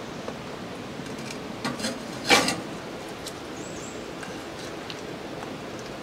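Cooking pot and utensils clinking: a couple of light clinks, then one louder clank a little after two seconds in, over a steady hiss.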